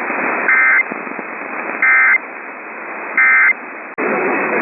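Emergency Alert System end-of-message data bursts: three short, identical, shrill digital warbles about a second and a half apart, marking the end of the alert. They sit over steady AM radio hiss, and near the end the broadcast audio cuts back in abruptly.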